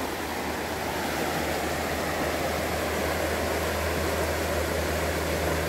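Shallow mountain river running over a rocky riffle: a steady rushing of water.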